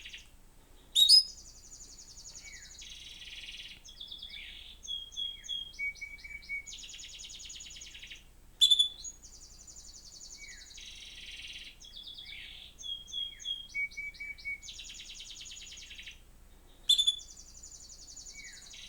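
Recorded canary song played through a TV's speakers: a phrase of high trills and rolls that repeats about every eight seconds, each time opening with a sharp loud note.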